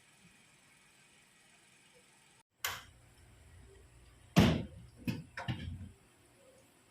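Several knocks and thuds in quick succession, the loudest about halfway through, over a faint low hum.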